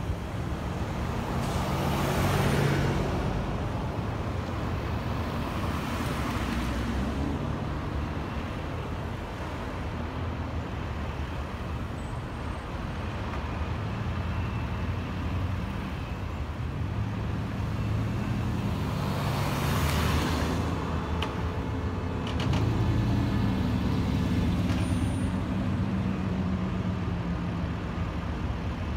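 Road traffic with heavy truck engines running, broken by hissing bursts about two seconds in, around six seconds and around twenty seconds in.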